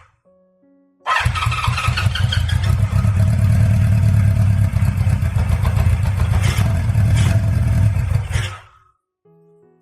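Honda CB550F's four-cylinder engine being turned over and firing for about seven seconds, then cutting off. It is hard to start, with the carburettors running slightly flooded because fuel has not yet reached every cylinder.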